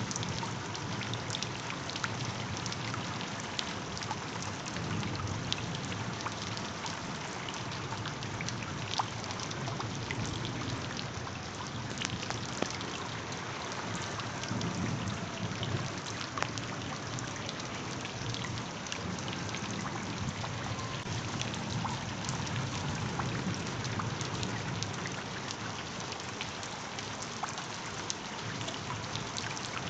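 Steady rain, with many small individual drop hits over an even wash of noise and a low, shifting rumble underneath.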